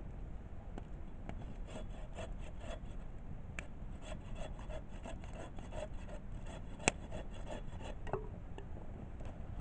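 Wood being worked by hand in quick, even rasping strokes, about three a second, like a hand saw or rasp cutting through a piece of wood. A single sharp crack comes about seven seconds in.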